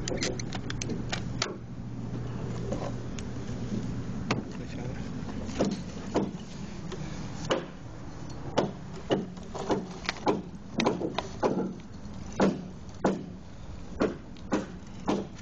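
A steady low hum for the first few seconds, then irregular sharp clicks or taps, about one or two a second, through the rest.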